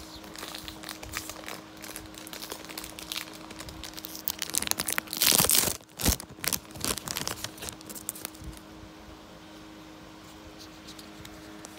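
Foil Pokémon booster pack wrappers crinkling as they are handled, with a loud rip about five seconds in as a pack is torn open. The crinkling dies down after about eight seconds.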